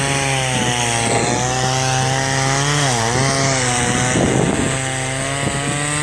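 A small engine running steadily, its pitch dipping briefly about three seconds in and then recovering.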